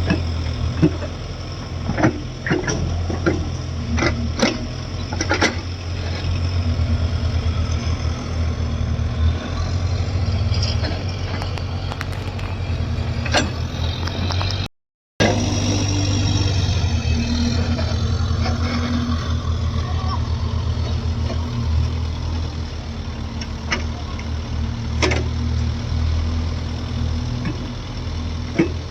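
JCB 3DX backhoe loader's diesel engine running steadily under load while it digs and loads mud, with scattered sharp clanks and knocks. After a brief gap about halfway, a falling whine sits over the engine.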